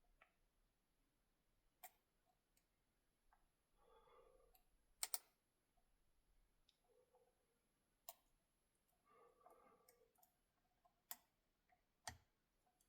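Faint, scattered clicks of lock picks working the pins of an ASSA RUKO 500 lock with gin spool pins; the loudest is a quick double click about five seconds in.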